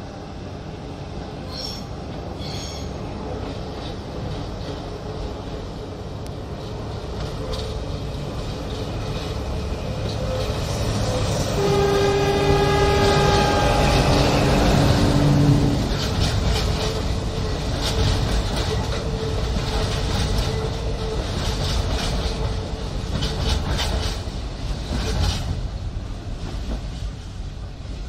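Diesel-hauled freight train of flat wagons passing close by on a curve, its rumble growing louder. About twelve seconds in, a horn sounds for roughly four seconds, stepping down to a lower note partway through. Then wheels clack over rail joints as the wagons roll past.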